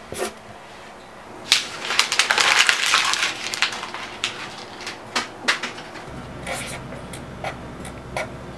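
A sheet of paper being crumpled by hand: a dense crackling burst lasting about two seconds, then scattered crinkles and snaps as it is squeezed further.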